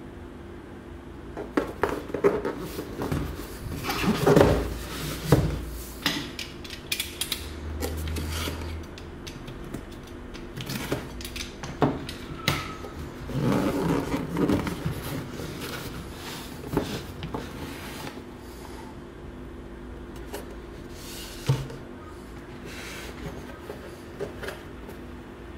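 A cardboard box being handled and opened by hand: irregular rustling, scraping and tapping of cardboard and packing, with the busiest handling about four seconds in and again around fourteen seconds. A faint steady hum sits underneath.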